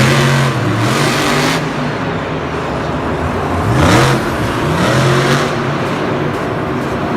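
Engine revving, rising in pitch in surges near the start and again around the middle, a loud, steady engine sound like a monster truck's.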